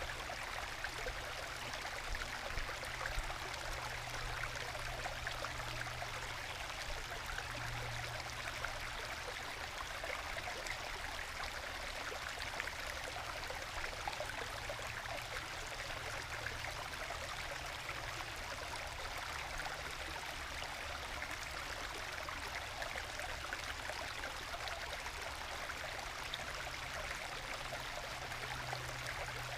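Small forest stream trickling and gurgling over low bedrock waterfalls into small plunge pools, a steady, gentle babble.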